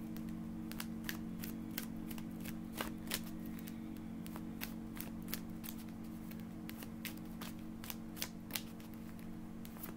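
A deck of tarot cards being shuffled by hand: a string of short, sharp card clicks and snaps, irregular at about two or three a second, over a steady low hum.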